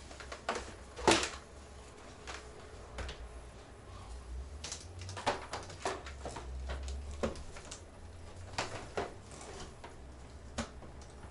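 Scattered clunks and knocks of a plastic Bionaire BW2300-N twin window fan being handled and slid into a window frame, the sharpest knock about a second in, over a faint low hum.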